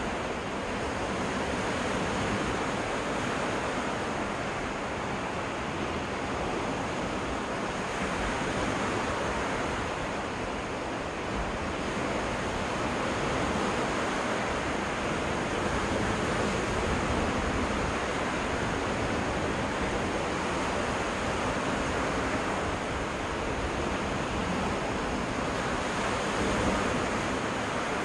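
Lake waves washing onto a freshwater beach: a steady rush of surf that swells and eases gently every few seconds.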